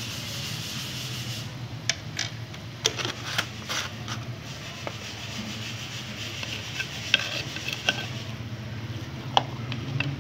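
Metal ladle stirring meat and spices in a clay pot, scraping and knocking irregularly against the pot from about two seconds in, over a steady low hum.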